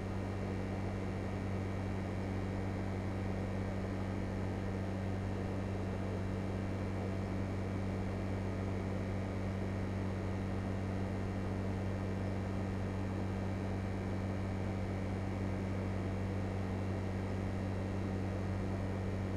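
LG Multi V 5 VRF air-conditioning unit running steadily: a low hum over an even rush of noise.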